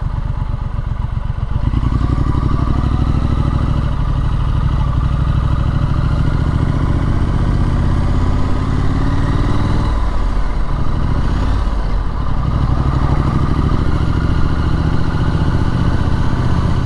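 Triumph Street Scrambler's parallel-twin engine pulling the bike along at riding speed, its pitch rising as it accelerates. About ten seconds in the note drops as the throttle eases off, then it climbs again.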